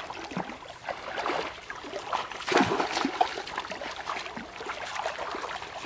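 Shallow stream water splashing and sloshing irregularly as people wade through it and a woven bamboo fish trap is pushed down into the water, with the loudest splash about two and a half seconds in.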